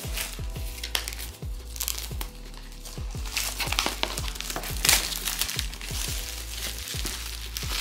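Clear plastic shrink-wrap crinkling and crackling as it is peeled off a cardboard box, over background music with a steady beat.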